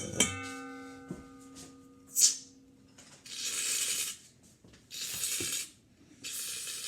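An aerosol can of shaving cream spraying in three hissing bursts, a second or so each, into the slime mixture. At the start a sharp knock sets off a ringing tone that fades over a few seconds.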